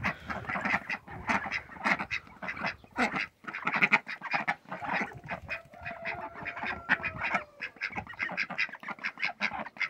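A flock of domestic ducks quacking in a rapid, continuous chatter.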